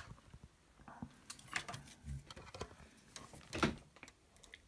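Hard plastic miniature sprues being handled: a few light, irregular clicks and knocks as the frames are picked up and turned over in the hand, the loudest a little past halfway.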